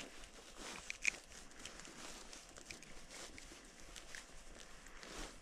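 Faint handling noises: soft rustling with a few light clicks, one about a second in.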